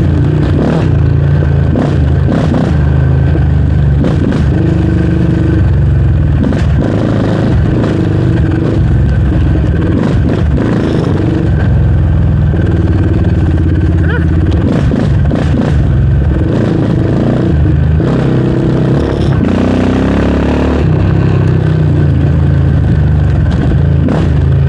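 Yamaha Raptor 700R sport quad's single-cylinder four-stroke engine running under way, its pitch rising and falling with the throttle, with frequent rattles and knocks as the machine rides over ruts.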